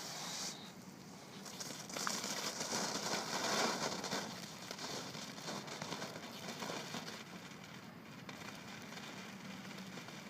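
Small ground fountain firework spraying sparks with a steady hiss and crackle. It swells about two seconds in, is loudest around three to four seconds, then dies down.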